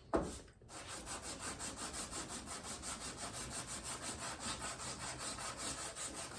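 Metal part being lapped flat by hand on sandpaper, rubbed back and forth in quick even strokes, about three to four a second, after a single knock near the start. The sanding is truing the part's gasket face, still slightly low in spots, so it will seal without a vacuum leak.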